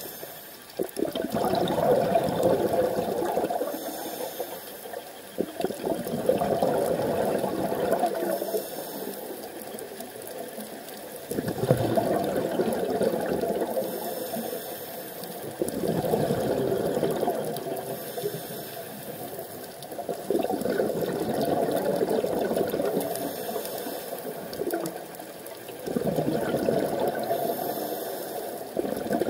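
Scuba diver breathing through a regulator underwater: a short hiss on each inhale, then a few seconds of bubbling rush from the exhaust, repeating about every four to five seconds.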